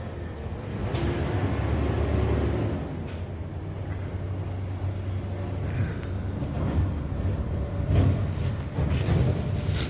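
Peterbilt 520 McNeilus ZR side-loader garbage truck's engine running with a steady low rumble, with a short hiss near the end.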